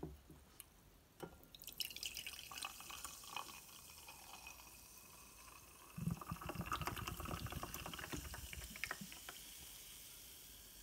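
Carbonated passion-fruit soft drink poured from an aluminium can into a glass tumbler: a quiet splashing pour that starts about a second in and gets busier about halfway. Near the end it gives way to the fading fizz of the foaming drink in the glass.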